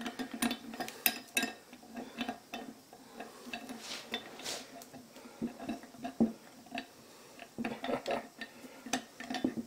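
Small metal clicks, taps and a couple of short scrapes as a short metal bushing is handled and slid into the bore of a cast grinding-arbor housing.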